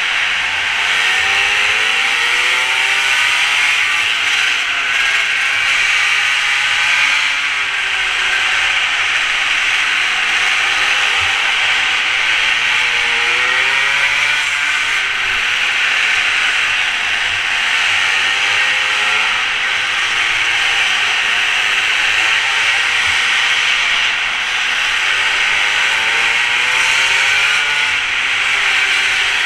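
Mini moto engine revving up and down as it is ridden through corners, its pitch rising and falling every few seconds. A heavy steady hiss of wind rush on the helmet-mounted camera runs over it.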